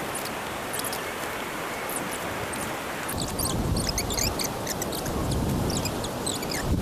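Wind buffeting the microphone outdoors, with light rustling and small scattered crackles; about three seconds in the low rumble of the wind grows stronger.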